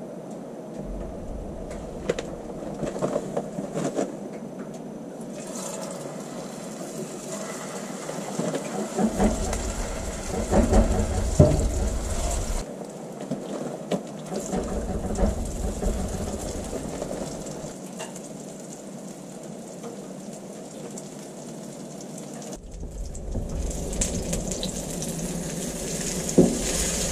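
Patties frying in a pan on a small wood stove, a steady sizzle with occasional clicks and scrapes of a metal spatula against the pan. A low rumble comes and goes in several stretches.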